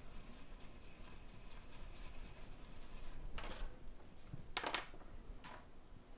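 Small brush scrubbing a wet iPhone 6 logic board, a fast, faint scratchy rustle, with three louder short swishes in the second half.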